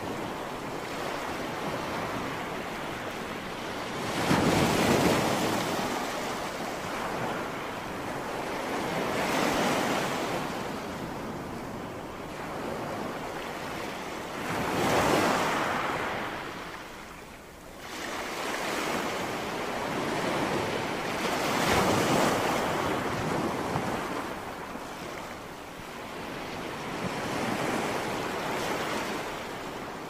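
Small waves breaking on a sandy beach: surf rushing in and washing back, swelling about every five to seven seconds.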